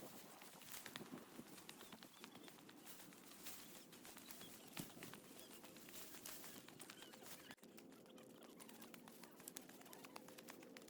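Near silence: faint outdoor ambience with scattered light ticks, cut off briefly about three quarters of the way through.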